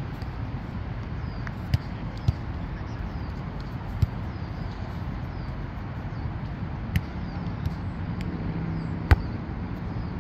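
Several sharp smacks of hands striking a volleyball during play, the loudest about nine seconds in, over a steady low outdoor rumble.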